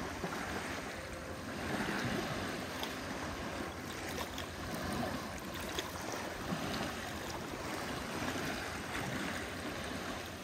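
Small waves on a calm sea lapping at a rocky shore: a steady wash of water that swells and eases gently every few seconds.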